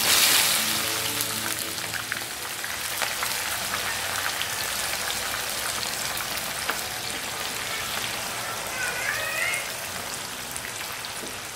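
Sliced onions, wet from parboiling, hitting hot oil in a karahi and deep-frying. A loud sizzling hiss starts suddenly as they go in, is loudest at first, then goes on steadily a little quieter.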